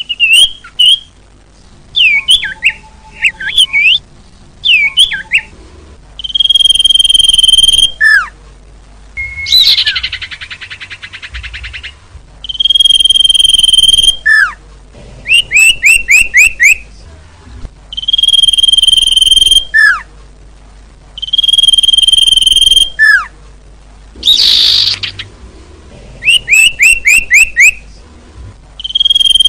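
Bird-lure playback of small songbird calls. Loud held whistles alternate with quick runs of five or six falling chirps, repeating every few seconds, with a buzzy rattle once about a third of the way in.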